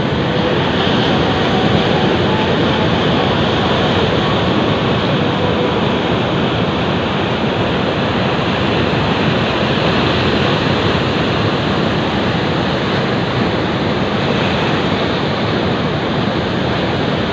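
Steady, loud rush of waves washing against a breakwater, mixed with wind blowing on the microphone.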